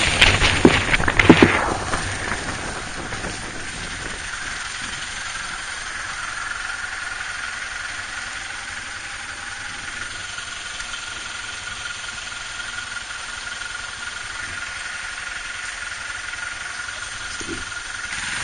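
Motorcycle engine running steadily under a noisy hiss, with a faint steady whine. A burst of loud clattering knocks comes in the first two seconds.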